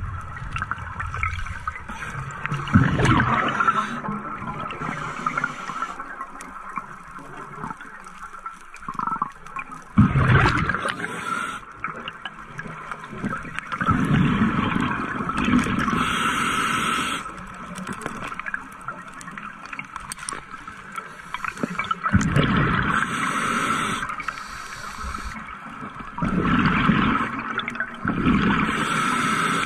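Scuba diver breathing underwater through a regulator: rushes of exhaled bubbles and the hiss of the regulator, recurring about every six seconds.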